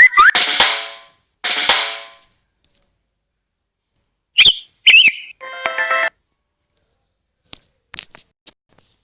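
Samsung Galaxy S7 ringtone and alert tones played through a Samsung Galaxy Tab 3 7.0's speaker, in short separate snippets. First comes a rising whistle-like chirp with two noisy percussive hits, then a pause, then two quick chirps and a brief chord. A few faint clicks follow near the end.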